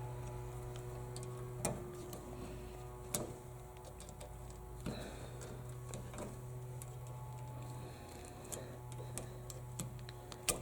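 Pliers working a stranded electrical wire: a few faint, scattered clicks and taps over a steady low hum.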